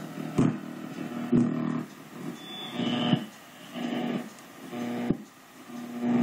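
Icom IC-7410 receiver audio as the tuning dial sweeps the AM broadcast band: static and humming tones come and go in short stretches, broken by sharp clicks as signals are tuned past.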